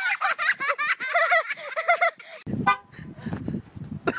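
A person's high-pitched laughter, in quick squeals that rise and fall, for about the first two seconds, then a short low rumble of noise.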